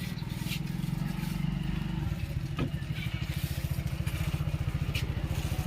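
A small engine running steadily, a fast low pulsing throb, with a few faint clicks.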